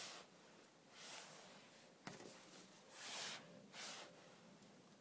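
Faint crunching of snow in about five short bursts, with a small click about two seconds in.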